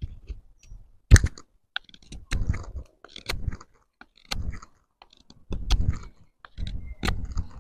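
A Cudeman 145-L bushcraft knife shaves wood from a stick in crunchy scraping strokes, about one a second, with a sharp click about a second in.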